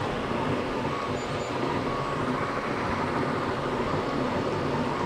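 Steadytech Mini 3D printer running while it prints its first layer: a steady whir of cooling fans, with faint stepper-motor tones that come and go as the head moves.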